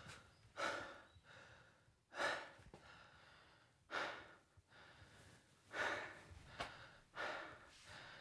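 A man breathing heavily, about five or six faint breaths each around half a second long, coming a second or two apart.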